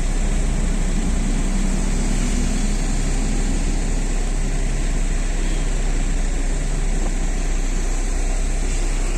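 Car engine running steadily, heard from inside the cabin: a constant low hum with an even hiss over it.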